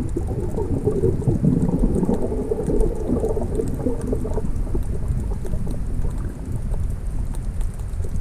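Underwater sound as heard through an action camera's waterproof housing: a steady, muffled rush of moving water with crackly bubbling.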